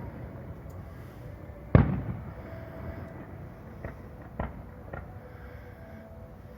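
Fireworks exploding: one big bang about two seconds in that rumbles on briefly, then a few smaller pops.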